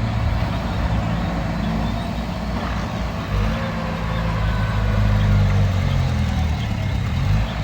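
Heavy diesel engine of the recovery machinery running, its note changing about three seconds in and again near the end as it is worked.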